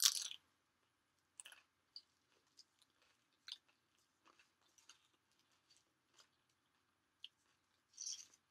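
Close-miked chewing of a burrito with tortilla chips in it: a sharp crunch right at the start, then faint intermittent crunching and mouth clicks, with another crunchy bite near the end.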